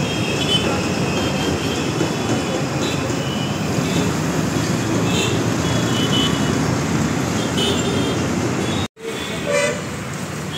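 Steady vehicle rumble with several short high horn toots scattered through it. The sound cuts off abruptly about nine seconds in and returns quieter.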